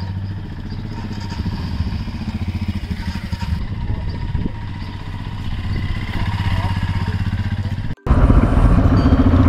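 Motorcycle engines running at low speed as the bikes pull away, with an even pulsing beat. Near the end it cuts to a louder, closer motorcycle engine running.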